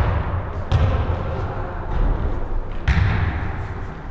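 Dull thuds on a hardwood basketball court from the ball and players' feet: four irregular thuds about a second apart, ringing in the large hall.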